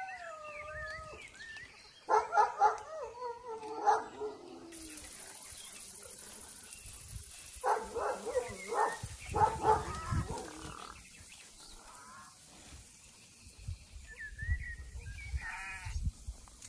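Animals crying out in several short, wavering, pitched calls that come in clusters, some gliding down in pitch, with a faint high hiss in between.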